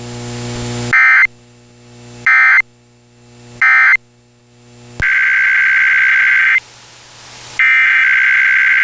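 EAS digital data bursts. First come three short, loud screeches about a second and a third apart: the SAME end-of-message code that closes the previous weekly test. Then, about five seconds in, come two longer screeches of the same data tones, the SAME header that opens the next test. A low hum with hiss fills the gaps between bursts.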